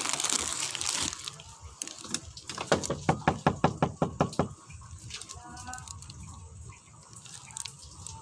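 Knocking on a door: a quick run of about ten knocks lasting some two seconds, starting about two and a half seconds in, after a rushing hiss in the first second.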